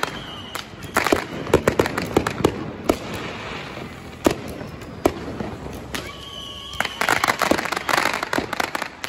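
Fireworks going off: bursts of sharp bangs and crackling, thick clusters about a second in and again about seven seconds in, with single bangs between.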